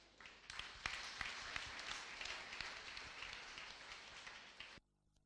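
Audience clapping and applauding, stopping abruptly just before the end as the sound cuts out.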